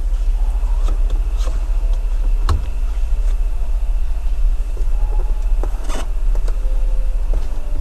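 Steady low rumble inside a Jaguar car's cabin, with a faint steady high whine over it and a couple of light clicks, one a little past two seconds and one near six seconds.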